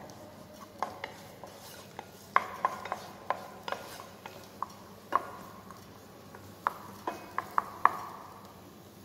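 Wooden spatula stirring chopped onion, garlic and carrot in a small frying pan, knocking and scraping against the pan in irregular strokes about once or twice a second.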